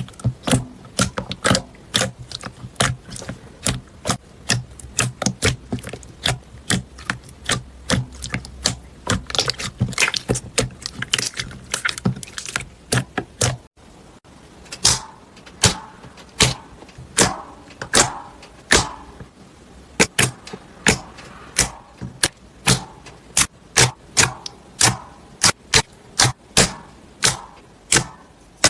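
Slime being pressed and worked by hand, giving a steady run of sharp pops and clicks about two a second. About halfway through it cuts to another slime, whose pops ring a little longer.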